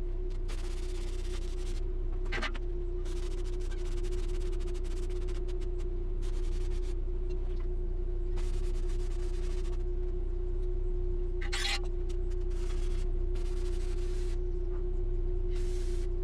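A steady machine hum with bursts of hissing noise coming and going.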